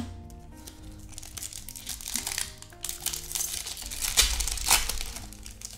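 Foil wrapper of a Pokémon card booster pack crinkling as it is pulled and torn open, loudest about four to five seconds in.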